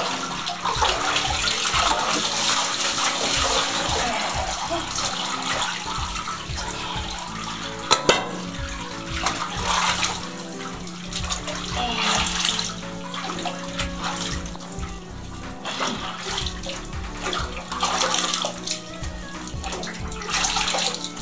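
Bath water sloshing and splashing as hands wash a wet dog in a bathtub, with background music running underneath. One sharp knock sounds about eight seconds in.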